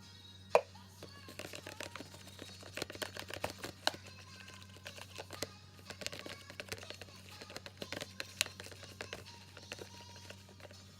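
A plastic mixing tool stirring glue and red paint in a bowl, making rapid, irregular clicks and taps against the bowl, with one louder knock about half a second in.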